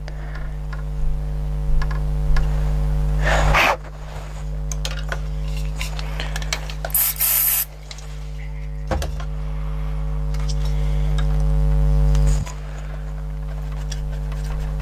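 Cotton swab scrubbing the contacts of a stereo's small rotary encoder, with many small scratchy clicks, and a short hiss of contact-cleaner spray about seven seconds in. A steady low hum runs underneath.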